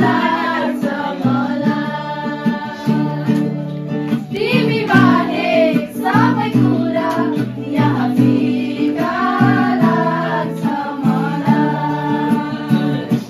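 Voices singing a slow song together to an acoustic guitar.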